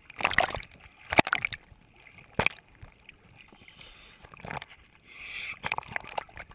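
Small sea waves splashing and sloshing against a waterproof action-camera housing held at the water surface, in irregular bursts, a few of them loud.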